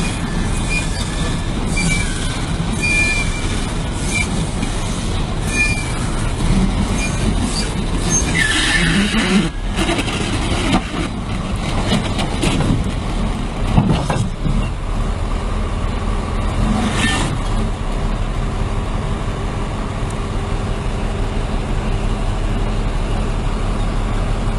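Heavy machinery running with a steady engine rumble, with a few knocks and clanks midway through.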